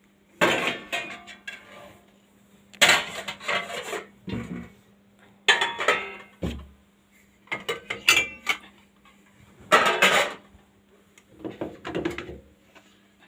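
Dishes clattering and clinking against each other in bouts as they are lifted out of a dishwasher rack and set down, about six rounds of knocks, under a faint steady hum.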